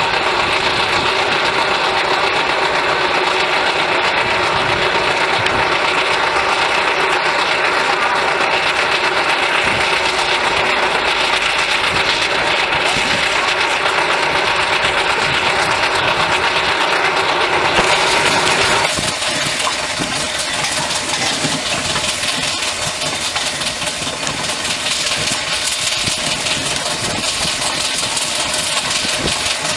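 Trotter one-ton road roller running and moving along, heard from the trailer it tows: a steady mechanical running with rattling. About two-thirds of the way through the sound changes abruptly to a rougher, hissier noise.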